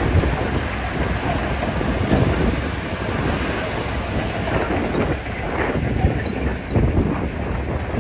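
Komatsu D41P bulldozer's diesel engine running as it works gravel, with wind buffeting the microphone.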